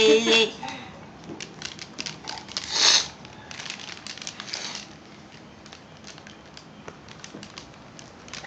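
Light scratching and crinkling clicks from a baby shuffling on a textured foam play mat, scattered and uneven, with a short breathy rush about three seconds in.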